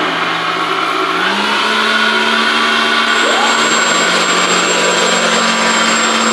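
Small electric motors and propellers of a foam RC hovercraft whirring steadily, the pitch rising about a second in and again past three seconds as the throttle is pushed up.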